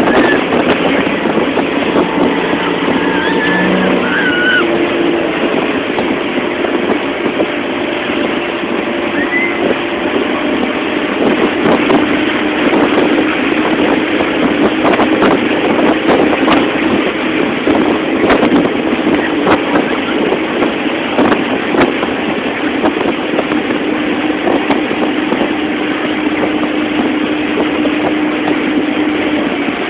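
Motorboat engine running steadily at speed, with a constant engine note over the rush of its churning wake and wind buffeting the microphone.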